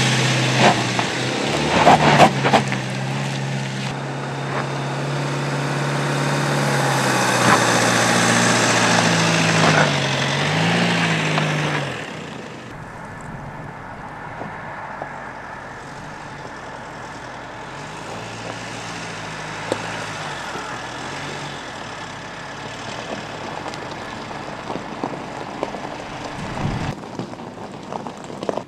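Mercedes-Benz GLC SUV driving off-road over loose gravel: the engine runs under load while the tyres hiss and stones click against them. About twelve seconds in the sound drops suddenly to a quieter engine whose revs rise and fall.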